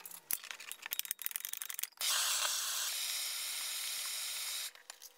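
Clicks and knocks of plastic pipe fittings being handled on black poly pipe, then a steady high hiss lasting nearly three seconds that cuts off suddenly.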